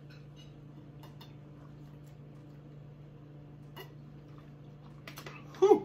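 A person drinking from a small plastic bottle: faint swallowing clicks over a steady low hum, then a few sharper clicks and a short, loud vocal sound near the end.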